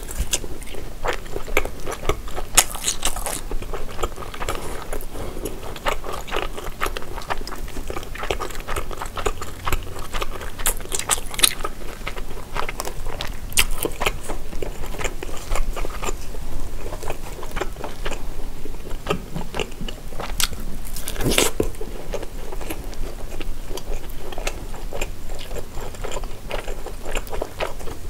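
Close-miked biting and chewing of a large grilled tteok-galbi, a Korean minced-beef patty, eaten by hand: many short, wet clicks of mouth and meat throughout, with one louder bite about three quarters of the way through.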